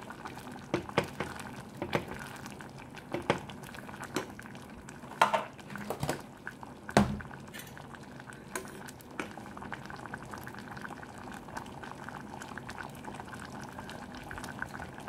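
Mung bean soup bubbling at a steady boil in a metal pot while a wooden spoon stirs it. The spoon knocks against the pot several times in the first half, the loudest about five and seven seconds in.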